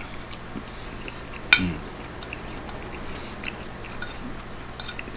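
A spoon clinking and scraping on a ceramic plate as meat sauce is scooped up: one sharp clink about a second and a half in, then a few lighter ticks, over a faint steady hiss.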